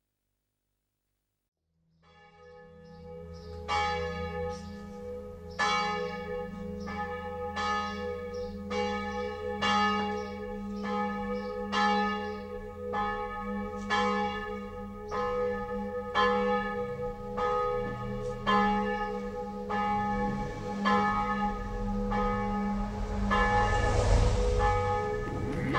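Church bells pealing: struck tones about once a second over a steady low hum, coming in after about two seconds of silence. A rush of noise swells near the end.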